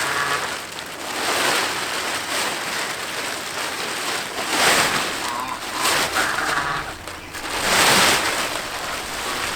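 Large sheet of greenhouse plastic film crinkling and rustling as it is handled, in uneven swells, loudest about a second and a half in, near the middle and about eight seconds in.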